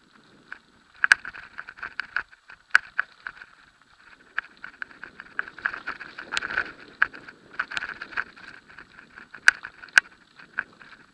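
Mountain bike clattering and rattling over a rough, bumpy dirt trail on a fast descent, a dense irregular rattle with several sharper knocks as it hits bumps, picked up by a camera mounted on the rider or bike.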